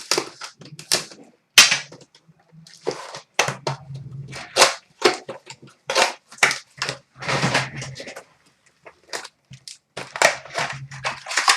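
A sealed box of hockey trading cards being torn open and its wrapping crinkled and crushed: a quick, irregular run of tearing and crackling noises with brief pauses.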